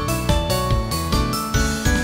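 Background music: a regular beat of about three strokes a second under a melody of short, high, held notes.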